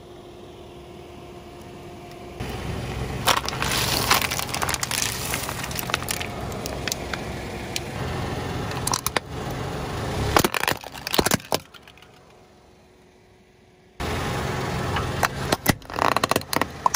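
A car tyre rolling slowly over hard plastic toys, crushing them: many sharp cracks and snaps of breaking plastic over the low running of the car's engine. The crushing comes in two long spells with a quieter gap about three-quarters of the way through.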